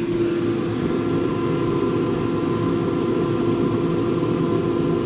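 A steady machine hum with one low, even tone and fainter higher tones, from a running fan or motor.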